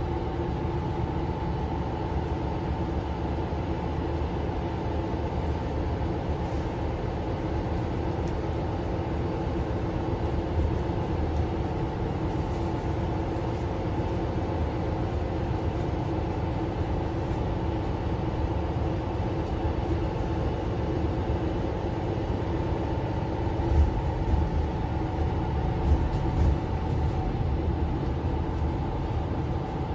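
Interior of a Mercedes-Benz Citaro C2 LE city bus under way: steady engine drone and road rumble, with a couple of louder jolts from the road about 24 and 26 seconds in.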